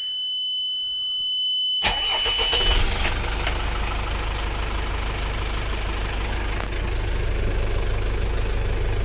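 Single Yanmar 240 hp marine diesel engine starting: a steady high-pitched warning tone sounds, then about two seconds in the engine cranks and catches at once. The tone dies away shortly after, and the engine settles into a steady low idle. The start is clean, exactly as it should be.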